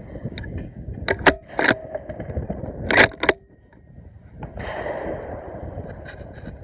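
Gunfire at an outdoor shooting range: three sharp shots in quick succession about a second in, then two more about three seconds in, some with a short metallic ring, over a steady low rumble.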